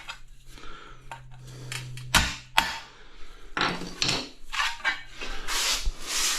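Screwdriver chipping and scraping at the edge of a hole cut in a ceramic tile, making a run of irregular sharp clicks and scrapes. A low steady hum runs under the first half.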